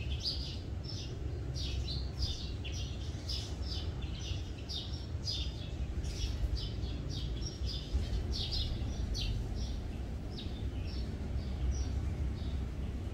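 Small birds chirping in short, quick high notes, about three a second, over a steady low rumble.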